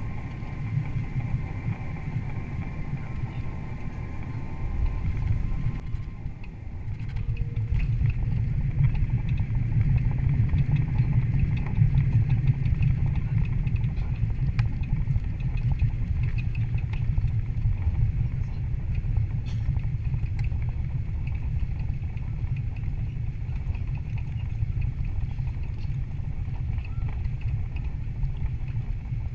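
Cabin noise of an Airbus A330 on its landing roll: a steady low rumble of engines and wheels on the runway. A faint whine stops about six seconds in, and the rumble then grows louder for several seconds before easing a little.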